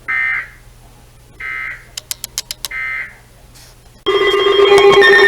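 Emergency Alert System end-of-message data bursts: three short buzzy beeps about a second apart, with a quick run of clicks between the second and third. About four seconds in, a loud steady alarm tone starts.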